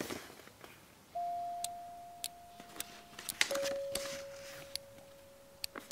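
Background music of soft, held electronic notes, one fading slowly before a lower one takes over about three and a half seconds in. Brief paper crackles from a folded instruction leaflet being handled come near the start and again with the note change.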